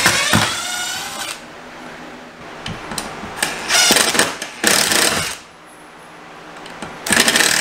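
Cordless impact driver running in four short bursts of about a second each, backing screws out of a wooden top plate at the ceiling. Its pitch wavers as it hammers.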